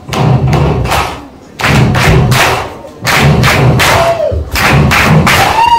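Loud rhythmic thudding, several quick even beats a second, in runs broken twice by short pauses.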